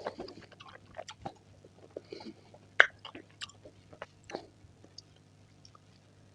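Close-miked chewing of fresh fruit: irregular moist crunches and clicks, with one much louder crunch a little before the middle, thinning out to almost nothing near the end.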